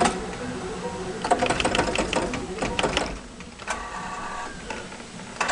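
Claw machine mechanism at work: sharp clicks and a stretch of rattling, then the steady whine of the gantry and claw motors about halfway through, as the claw drops, closes and moves a prize.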